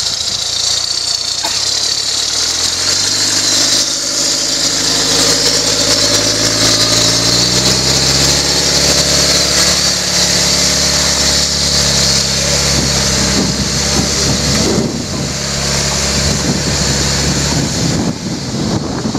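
Engine of a 2015 Whitbread challenge truck (tube-framed off-road truck) being revved and driven hard up a steep dirt hill, its note rising over several seconds and then held under load, turning rougher near the end.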